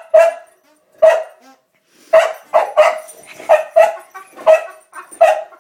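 Boxer dog barking excitedly in a rapid string of short, loud barks, about ten in all, with a brief pause after the first couple.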